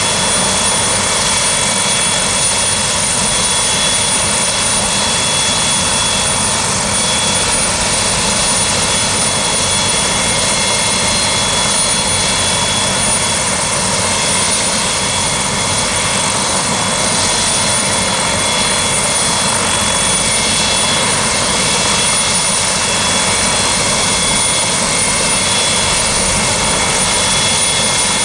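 Sheriff's turbine helicopter running steadily: a constant engine and rotor noise with a steady high-pitched whine over it.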